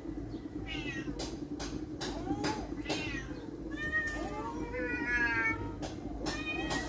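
A cat meowing, about five short calls spread through a few seconds, some rising and falling in pitch. Sharp clicks sound between the calls, most often near the end, over a steady low hum.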